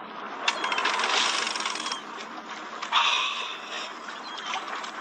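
Big-game fishing reel ratcheting in a fast run of clicks as line runs through it, then again more briefly about three seconds in.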